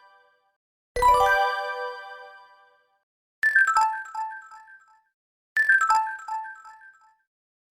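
Electronic chime-style button confirmation sound effects: one bright bell-like chime struck about a second in and ringing out, then a quick falling run of five or six chime notes, played twice.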